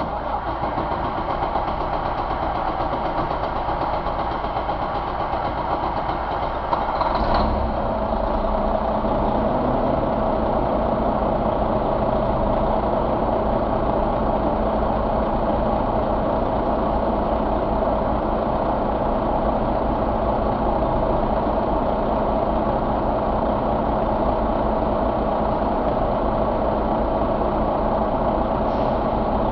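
A steady mechanical hum, then about seven seconds in the 2014 Volvo D13 inline-six turbo diesel starts with a short surge and settles into a steady, evenly pulsing idle.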